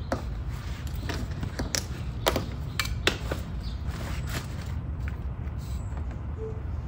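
Scattered knocks and clunks of bags and items being set into a car's rear cargo area, over a steady low rumble. The knocks come over the first four or five seconds, the loudest about two seconds in.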